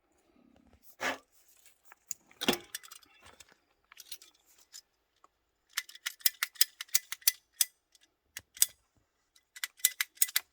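Small metal plumbing parts and tools being handled during PEX pipe work: a couple of knocks, then a quick run of sharp metallic clicks and clinks, with a few more near the end.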